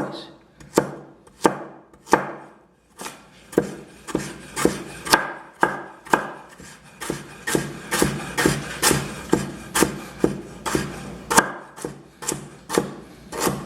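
Knife slicing a carrot on a cutting board: a long run of sharp knocks, about two a second, as the blade hits the board, with a brief pause a couple of seconds in.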